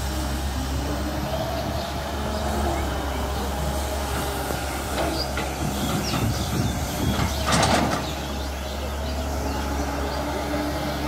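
Caterpillar 320 hydraulic excavator's diesel engine running steadily under digging work, with a brief louder burst of noise about seven and a half seconds in.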